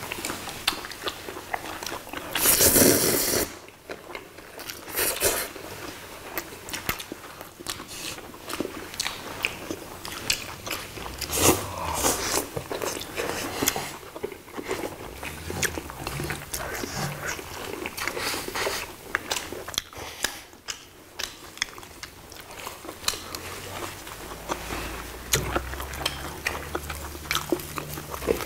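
Close-miked eating sounds: chewing and lip smacks of people eating braised dried pollack and noodles, with many small clicks from chopsticks on plates. One louder, noisy burst comes about three seconds in.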